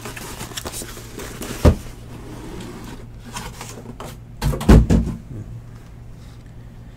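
Handling noises on a tabletop: scattered light clicks and taps, a single sharp knock about a second and a half in, and a cluster of heavier thumps and knocks around four and a half to five seconds, the loudest moment.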